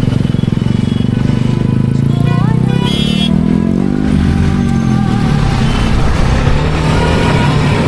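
TVS Apache RR 310's single-cylinder engine running on the move, its pitch dipping and rising through the middle as the rider eases off and slows. A brief high tone with a rising glide sounds about three seconds in.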